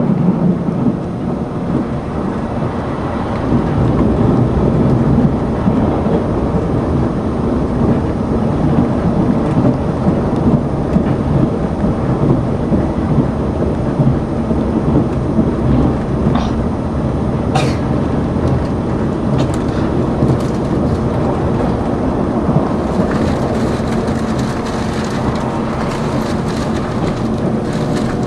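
Interior running noise of the Sonic limited express tilting train at speed: a steady, loud rumble of wheels on rail. A few sharp clicks come about two-thirds of the way through, and a hissier crackle joins near the end.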